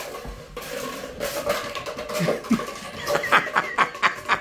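Kittens batting an empty cardboard paper-towel tube across a vinyl kitchen floor: light knocks and scuffles, coming as a quick run of short clicks in the second half.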